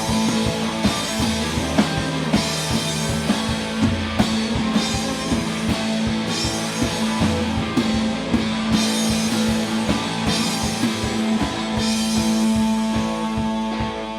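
Indie rock band playing live, an instrumental passage without vocals: a drum kit keeps a steady beat under guitars.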